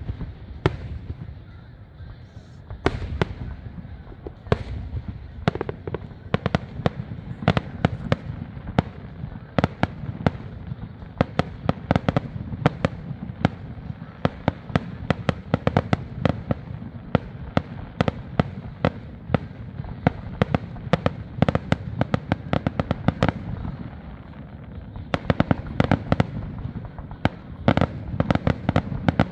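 Aerial fireworks display: a rapid, unbroken string of sharp bangs and crackling bursts, several a second, over a continuous low rumble of overlapping explosions. The bangs come thickest about 25 seconds in.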